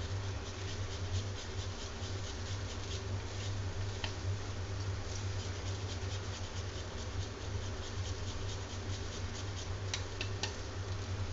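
Cheese being rubbed on a handheld flat metal grater: a quick run of repeated soft scraping strokes over a steady low hum, with a few sharper clicks near the end.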